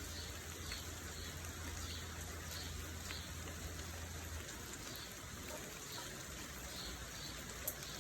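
Steady rain, with individual drops standing out now and then. A low hum underneath stops about halfway through, and a single sharp tick comes near the end.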